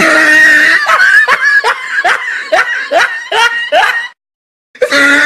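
Loud laughter: a held opening sound, then quick rhythmic bursts of about three a second. It breaks off about four seconds in, and the same laugh starts over after a half-second gap.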